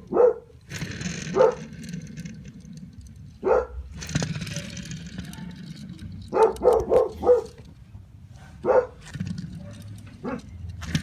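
A dog barking, mostly single barks spaced a second or more apart, with a quick run of four barks about two-thirds of the way in. A steady low hum runs underneath.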